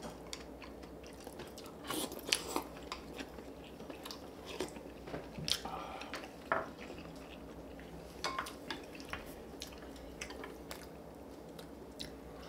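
People chewing and biting food at a meal, with scattered short sharp clicks and taps throughout.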